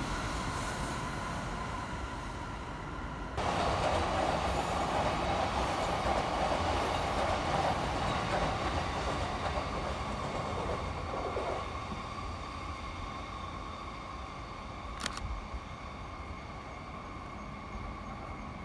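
Trains passing on a city railway: a steady rumble of wheels on rail with a high, held squeal-like tone. It jumps louder about three seconds in, then slowly fades as the train runs away, with a single sharp click near the end.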